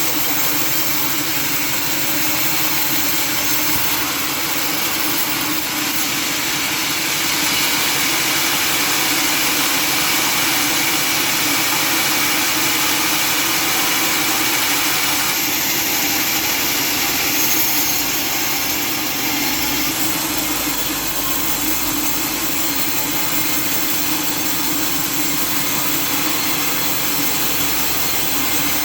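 Sawmill machinery running steadily with a loud, dense, even noise that shifts slightly about fifteen and twenty seconds in.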